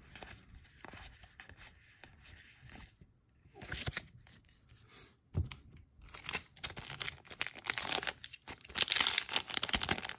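Trading cards rustling as they are flipped through by hand, a short knock about five seconds in, then a foil booster-pack wrapper being torn open and crinkling, louder and denser toward the end.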